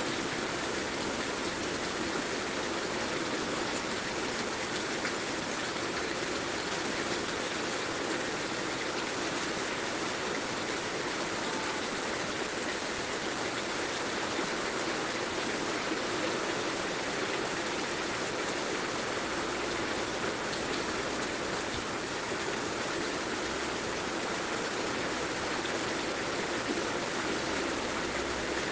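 Heavy rain falling steadily, an even hiss of dense drops.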